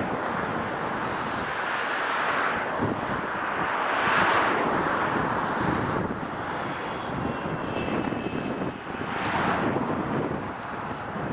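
Boeing 777-200ER twin-engine jet airliner landing: a steady loud rush of jet engine noise that swells and eases several times, with a faint high whine in the middle.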